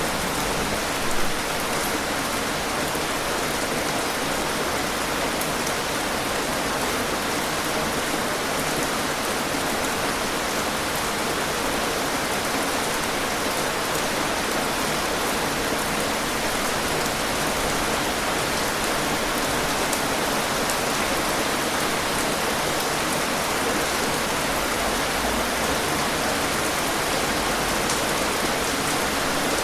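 Steady rain falling, an even hiss with the patter of individual drops on a surface. A brief louder drop or tap about a second in.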